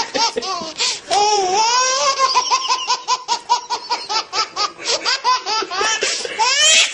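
High-pitched, hearty human laughter: quick runs of giggling broken by long drawn-out squeals, rising to a shriek near the end.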